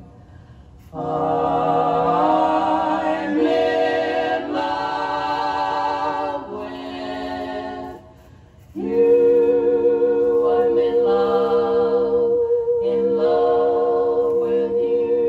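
A women's vocal quartet singing in harmony, played from a vinyl record. The singing pauses briefly just after the start and again about eight seconds in, then one high note is held over shifting lower parts.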